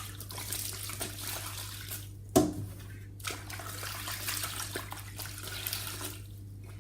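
Water splashing and dripping as soaked cleaning cloths are lifted out and squeezed out, with a single sharp knock about two and a half seconds in.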